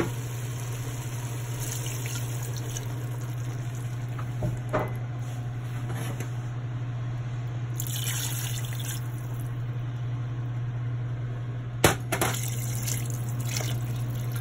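Water poured from a container into a steel pot of chicken pieces, splashing into the pot in uneven pours. Two sharp knocks come about 4.5 s and 12 s in, the second the loudest, over a steady low hum.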